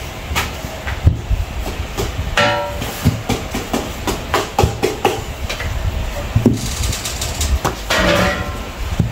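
Irregular knocks and thumps of roti-making work at a table, with dough being pressed flat and utensils knocking. Two short pitched, voice-like sounds come through, about two and a half seconds in and near the end.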